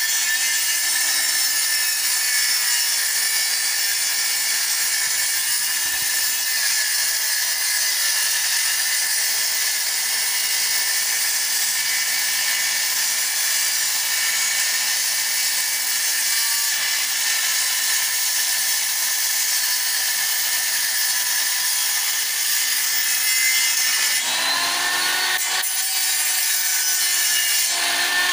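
Handheld electric circular saw running and cutting through thin wooden strips, a steady loud high whine with the noise of the blade in the wood. Near the end the motor's pitch wavers up and down as the load on the blade changes.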